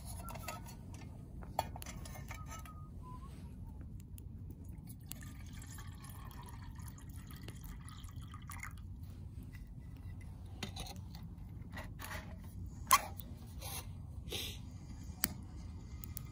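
Water poured from a metal bottle into a metal mug sitting on a wood-burning camp stove, a splashing trickle that runs for several seconds starting about five seconds in. Scattered sharp clicks and knocks come through, the loudest about thirteen seconds in.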